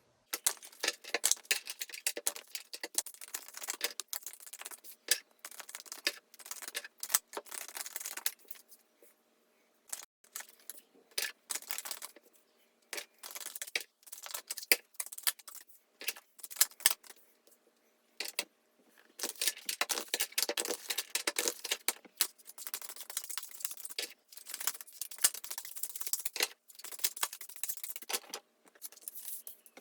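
A tarot deck being shuffled by hand: quick, irregular runs of card clicks and rattles, with short pauses about ten and about eighteen seconds in.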